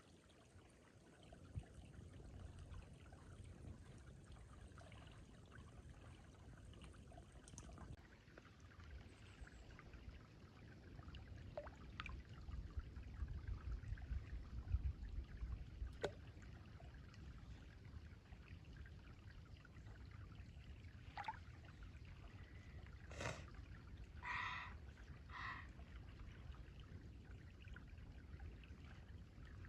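Faint trickling of a small creek running over rocks. A low rumble on the microphone swells around the middle, and a few short faint sounds come near the end.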